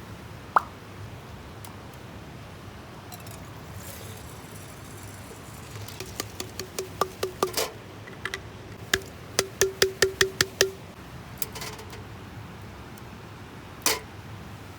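A run of quick light taps, each with a short ringing note, in two bursts of several taps a second, with a single knock before and after.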